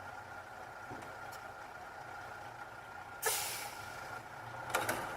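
Heavy vehicle engine running steadily, with a sudden loud hiss about three seconds in and a few short clicks near the end.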